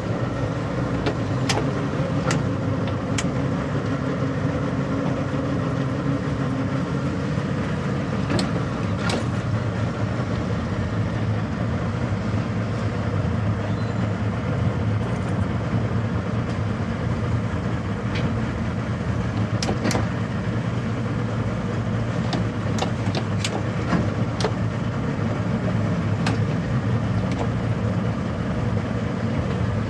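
Boat engine running steadily at low speed, a continuous low hum, with a few short sharp clicks scattered through it.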